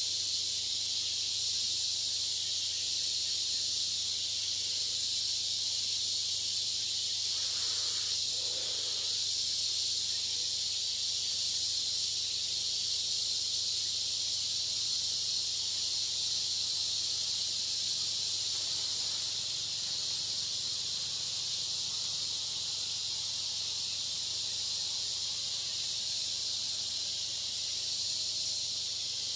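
Steady high-pitched hiss of a forest insect chorus, with a faint short call about eight seconds in.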